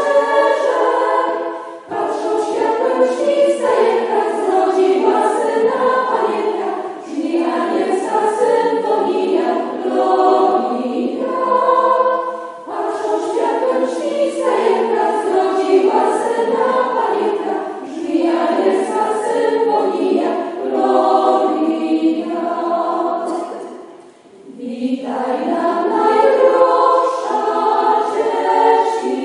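Women's choir of nuns singing a Christmas carol together, in phrases with short breaks between them and a longer pause about three-quarters of the way through.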